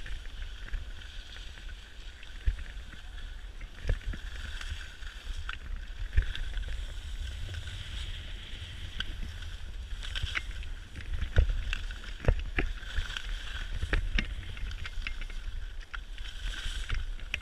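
Skis hissing and scraping over packed snow during a downhill run, with wind buffeting the microphone in a low rumble and scattered sharp knocks.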